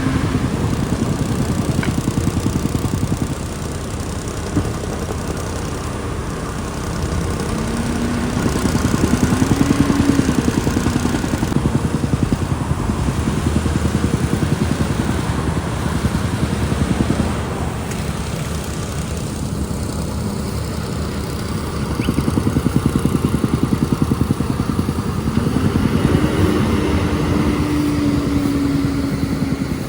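Diesel engine of a Caterpillar backhoe loader running and revving up twice, about eight seconds in and again for the last several seconds. Each time a whining tone rises and holds as the machine works.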